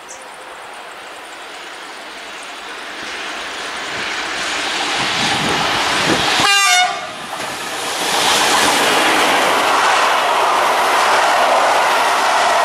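SNCF BB 27000 electric locomotive hauling an intermodal freight train of road semi-trailers on rail wagons, approaching with a steadily rising rumble of wheels on rail. The locomotive sounds a short horn blast about six and a half seconds in. The loud, steady rush and clickety-clack of the wagons going past follows.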